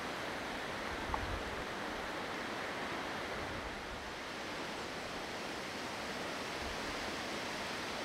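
Steady rushing wind on an open mountainside, with low gusts buffeting the microphone about a second in and again near the end, and a brief click about a second in.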